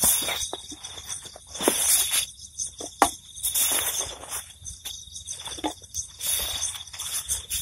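A fabric backpack being handled, with rustling of the cloth and knocks of its straps and buckles. A steady high insect trill runs underneath.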